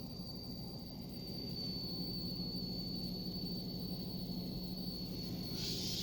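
A steady, high-pitched thin whine in a Nissan 350Z's cabin over the low hum of the running car, with a brief hiss near the end. The whine seems to come from the radio speakers even though the stereo is off, and the owner takes the speakers for its source.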